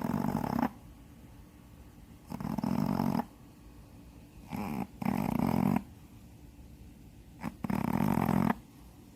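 A Shih Tzu snoring while asleep, its nostrils surgically widened: four loud snores, each about a second long, coming about every two and a half seconds.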